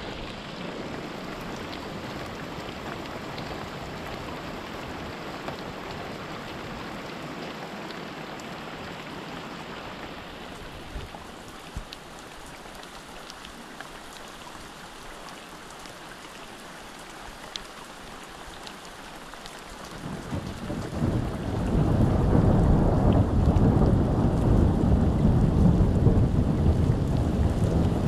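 Thunderstorm: steady rain hissing, then about two-thirds of the way through a long, loud rumble of thunder builds and rolls on to the end.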